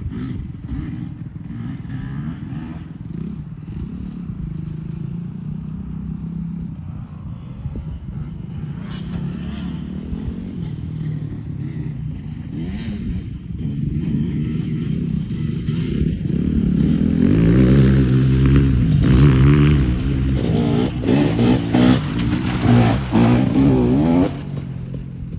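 KTM 250 SX two-stroke motocross bike engine running, getting louder about two-thirds of the way in and revving up and down repeatedly, then dropping back shortly before the end.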